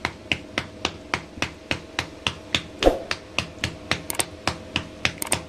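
Bare hands patting and pressing a ball of makki (cornmeal) dough flat on a rolling board, a steady rhythm of about three to four pats a second, with one heavier knock about three seconds in.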